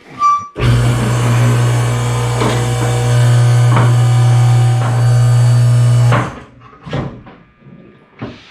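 Cordless electric impact wrench running steadily for about five and a half seconds, with a few sharp knocks during the run, spinning off a wheel's lug nuts. A short high beep just before it starts.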